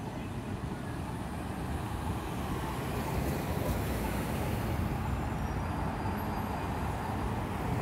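Road traffic at an intersection: cars passing close by, the sound swelling somewhat from about three seconds in as vehicles cross near the microphone.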